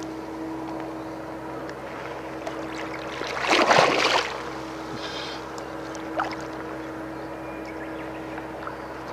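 Small boat under way on a pond: water washing along the hull over a steady low motor hum, with a louder rush of water about three and a half seconds in.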